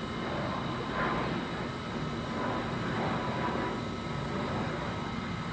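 Southwest Airlines Boeing 737 jet engines heard from the ground as the airliner climbs overhead: a steady, even jet noise.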